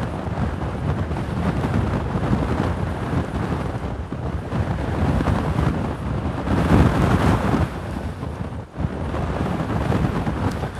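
Strong wind buffeting the microphone: a loud, low, rumbling rush of noise with a stronger gust about two-thirds of the way through and a brief lull shortly after.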